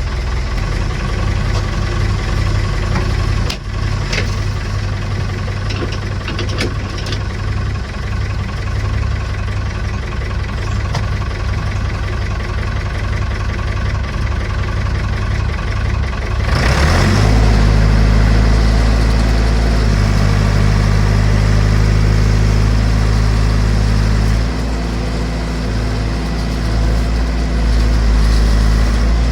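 Massey Ferguson BX 50 backhoe engine idling shortly after a cold start, with a few sharp knocks around four to seven seconds in. About sixteen seconds in, it grows louder and deeper and then runs steadily.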